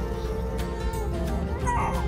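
Infant crying hard in wavering, wailing cries over background music, put down to the change in cabin pressure just before landing.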